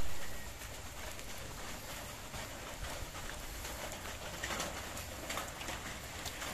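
A dove cooing over a steady hiss of wind and rain in the trees after a heavy tropical downpour.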